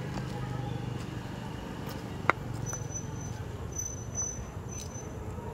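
Steady low outdoor background hum, with one sharp click a little over two seconds in and a faint high whine through the middle.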